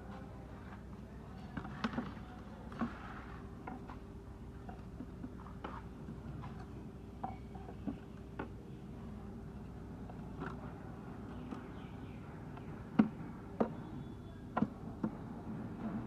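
Scattered light metal clicks and knocks from an automatic transmission's valve body being handled and offered up against the gearbox casing, with the sharpest knock about 13 seconds in. A steady low hum runs underneath.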